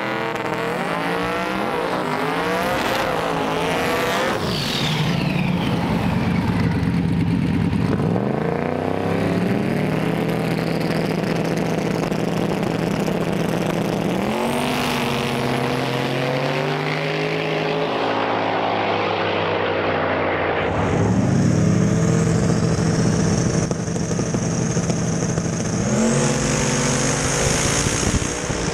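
Drag-race car engines at the starting line, revving up and holding steady at high revs, several times over. About twenty seconds in, an engine is heard running hard from inside a car, with a steady hiss above it.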